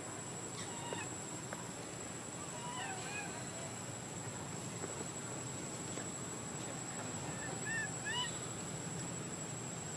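Baby long-tailed macaque crying: short, high, arching whimper calls in three brief bouts, near the start, about 3 s in, and loudest about 8 s in.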